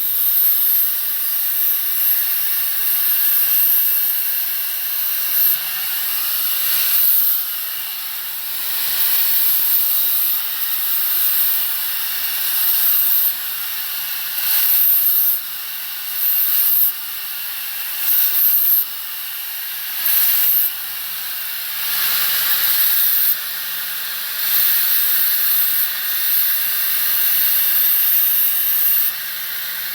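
Angle grinder with a flap disc grinding road rash off a wheel rim: a steady high whine under a hissing grind. Through the middle stretch the grind repeatedly cuts in and drops back.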